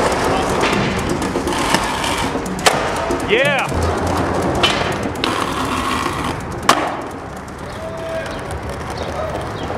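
Skateboard wheels rolling on rough concrete, with a sharp clack from the board about two and a half seconds in and another just before seven seconds.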